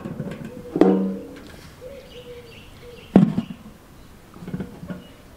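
Galvanized steel buckets set down upside down on stone, clanking twice, about a second in and about three seconds in, each clank followed by a short metallic ring.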